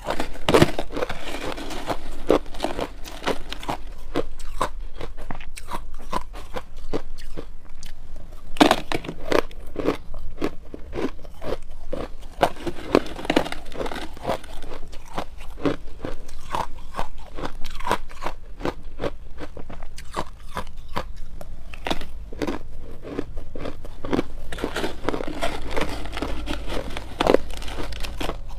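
Crushed ice being bitten and chewed: a dense, continuous run of hard crunches, with a few louder bites about half a second in and again around nine seconds.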